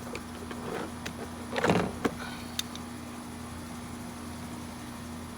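Metal tools clicking and a short, louder scrape about a second and a half in as a stuck valve lifter is worked in its bore in a Chevy 5.3L V8, over a steady background hum.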